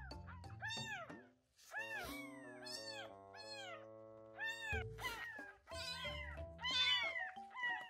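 Baby kitten mewing over and over in short, high-pitched cries that rise and fall, about two a second, with a brief pause a little before the middle; background music plays underneath.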